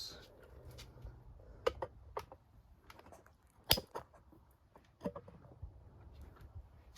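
A spanner working a rusted bumper-iron bolt: a few scattered short clicks and knocks, with one sharper knock a little past halfway.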